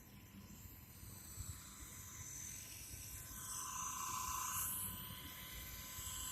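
Blade 230s V2 electric RC helicopter in flight: a steady high whine from its brushless motor and rotor head, growing louder and shifting in pitch about halfway through. Low wind rumble sits under it.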